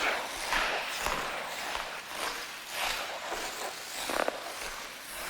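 Ice skate blades scraping across ice in repeated strides, a hissing scrape every half second to a second.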